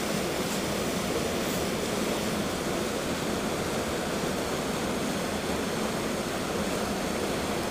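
River water rushing steadily over rocks through a small rapid.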